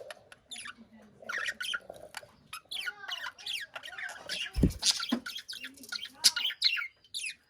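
Several budgies chattering in their cage: a dense run of short, high chirps and squawks, many falling in pitch. A brief low thump sounds a little past halfway through.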